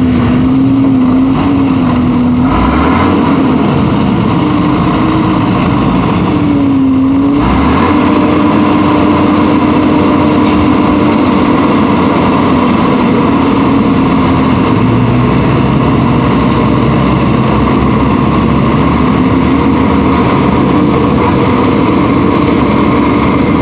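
Tractor diesel engine running loud and close, its speed wavering up and down as the front loader works.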